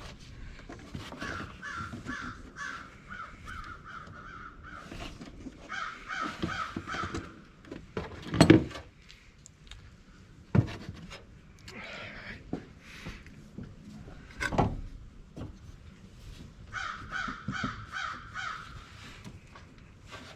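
Crows cawing in three runs of quick, repeated calls, with three sharp knocks between the runs, the loudest about eight and a half seconds in.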